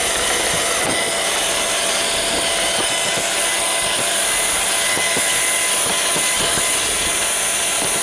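Roomba robot vacuum running, its motor, brushes and drive wheels heard close up from on top of the robot as a steady whirring hum with a high whine and scattered light knocks.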